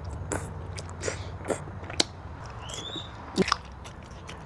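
Close-miked chewing and mouth noises of someone eating seafood papaya salad, with scattered wet clicks and a few sharper snaps, and a brief squeak a little before three seconds in.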